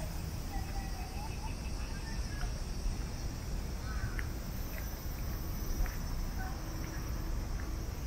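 Outdoor park ambience: a steady high drone of insects, a few short bird chirps, and a low rumble underneath.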